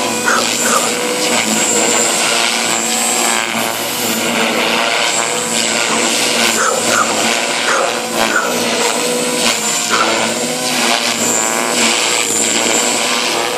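JR Forza 450 electric RC helicopter, driven by a 3,500 kV JR motor, in flight: a steady high motor and gear whine over the swish of the main rotor. The pitch rises and falls as it manoeuvres.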